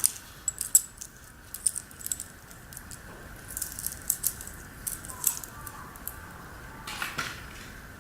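Light metallic clicking and rattling, scattered and irregular, with a small cluster near the end: a saw chain's links and the bar and cover parts of a Makita chainsaw clinking as they are handled during a tool-free chain change.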